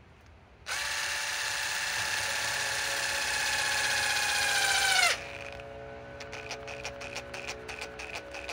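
DeWalt DCF887 brushless impact driver on its lowest speed setting driving a long screw into a log: the motor whines steadily for about four seconds, sagging in pitch just before it stops, then the impact mechanism starts hammering slowly and evenly, about four blows a second. At this setting it fails to sink the screw.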